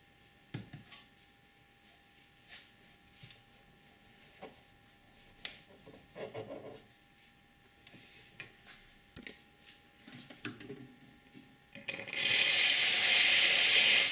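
Light rubbing and small clicks of a cloth wiping a steam wand. About twelve seconds in, the Lelit Elizabeth PL92T's steam wand is opened and purged with a loud, steady hiss of steam that stops abruptly.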